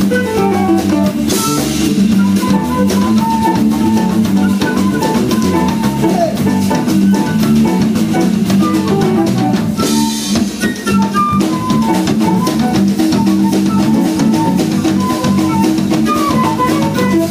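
Live band playing a baião instrumental: a quick plucked melodic line runs over held chords and a drum kit groove, with cymbal crashes about a second and a half in and again about ten seconds in.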